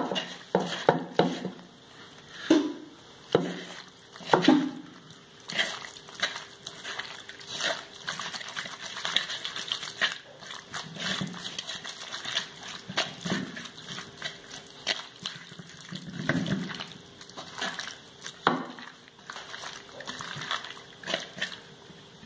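A hand squishing and mixing raw prawns with a salt, turmeric and chilli powder coating in a bowl: irregular wet squelches and clicks.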